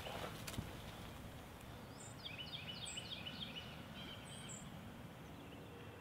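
Quiet outdoor ambience with steady background noise and a single faint click just after the start. From about two seconds in, a songbird calls a quick run of short falling chirps, about four a second, for roughly two and a half seconds.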